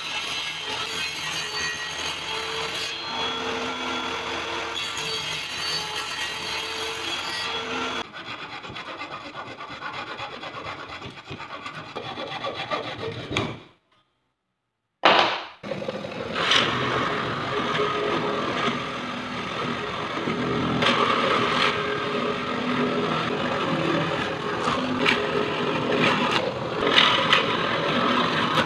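Plywood being sawn: first a table saw cutting through a small plywood piece, then, after a short silent gap around the middle, a hand saw's rasping back-and-forth strokes through plywood held in a vise, the longest and loudest part.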